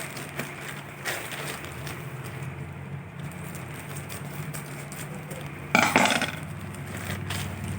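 A parcel being opened by hand: small handling clicks and rustles of its wrapping, with one louder, brief noisy burst about six seconds in. A steady low hum runs underneath.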